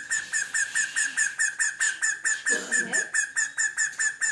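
A pet bird calling in a rapid, even run of short high chirps, about six a second, over a steady high note. A brief low sound cuts in about two and a half seconds in.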